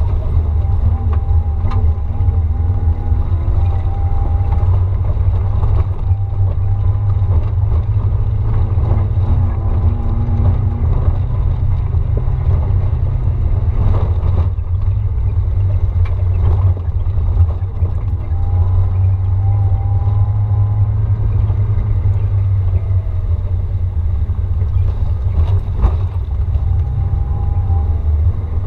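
Off-road vehicle driving up a rough gravel forest track: a steady, loud low rumble of engine and tyres with a faint whine that drifts up and down, and a few sharp knocks from the stony road.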